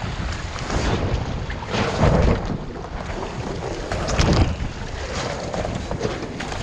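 Lake water splashing and sloshing around a windsurfer in the water as he hauls the sail and boom up beside the board, with wind buffeting the microphone. Louder splashes come about two seconds in and again just past four seconds.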